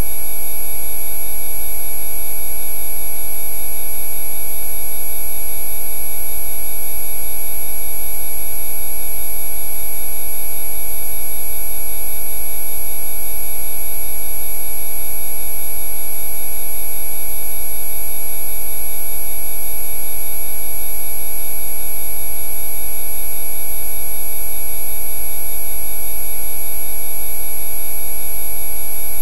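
Electronically generated Rife-frequency tones: many fixed pitches sounding together at once, from a low buzz up to a high whine. They run loud and unchanging.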